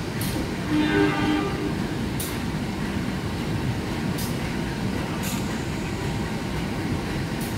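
Passenger train of executive coaches rolling along a station platform with a steady low rumble, and sharp high ticks every couple of seconds. A short horn blast sounds about a second in.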